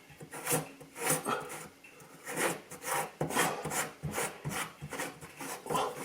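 Repeated rough scraping and rubbing strokes, about two a second and unevenly spaced, from hands and tools working an old kitchen sink drain strainer loose.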